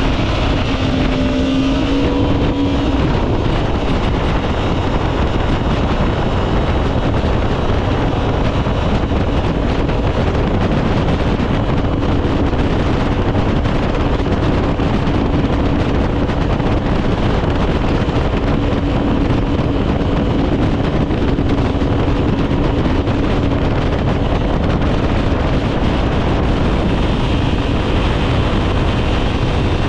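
Jet boat engine and jet pump running steadily under way.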